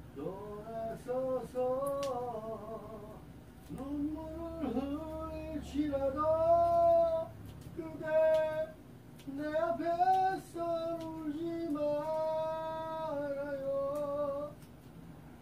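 A woman singing a tune without accompaniment, in several phrases of long held notes that slide between pitches, stopping near the end.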